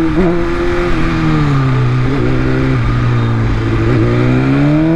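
BMW S1000RR's inline-four engine running at low speed in traffic, over wind and road noise. Its note sags a little as the throttle eases, then climbs near the end as the bike accelerates.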